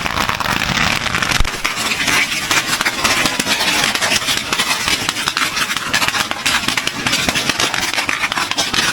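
A long string of firecrackers going off in a dense, rapid crackle of many small bangs.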